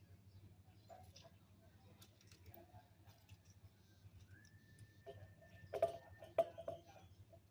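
Faint kitchen handling over a steady low hum: scattered light clicks, then two sharper knocks a little before the end, like a container or spoon set against a cup. A thin, steady whistle-like tone lasts about two seconds around the same time.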